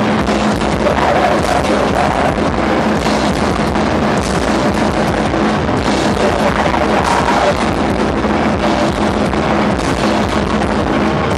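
Live rock band playing loud electric guitar and drums, picked up by a camcorder's microphone as one dense, steady wall of sound.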